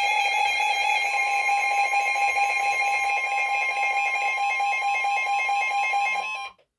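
Emergency alert attention tone: a loud, steady electronic alarm of held tones. A second, higher tone joins about a second in, and the sound cuts off abruptly near the end. It signals that a new warning message is about to be read.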